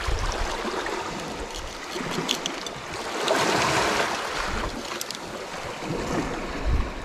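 Sea waves washing against rocks, with one wave surging up about halfway through, and gusts of wind buffeting the microphone near the start and end.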